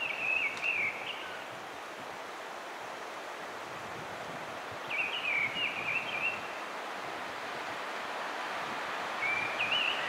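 Mistle thrush singing: three short, fluting phrases a few seconds apart, over a steady wind hiss.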